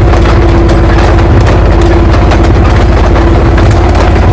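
Sound effect of a military tank's heavy engine idling: a loud, steady rumble with a fast low throb under a constant hum.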